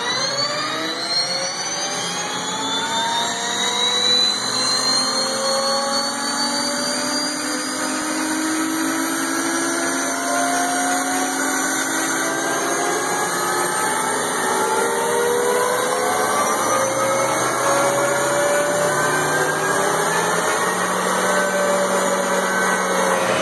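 Honeywell AGT1500 gas turbine of an M1 Abrams tank starting up: a whine of several tones rises in pitch over the first few seconds, then settles into a steady high whine as the turbine comes up to speed.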